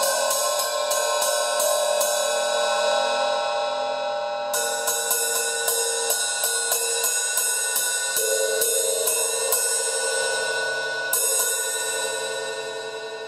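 Paiste 2002 14-inch hi-hat cymbals struck in runs of quick strokes, about three a second, with a long metallic ring between and after them. A pause lets the ring die down before the second run, and a single last stroke near the end rings out.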